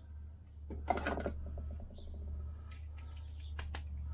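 Metal hand tools clinking and scraping on a workbench, with a cluster of handling noise about a second in and a few sharp clicks near the end, over a steady low hum.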